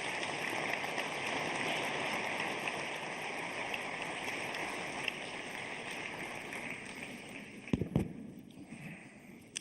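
Audience applause in a large hall, dying away gradually over several seconds, with two dull thumps close together near the end.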